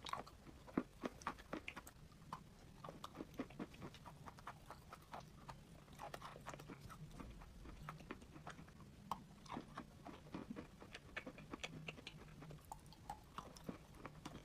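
A person biting and chewing a lump of chalk close to the microphone: irregular small crunches and clicks, several a second.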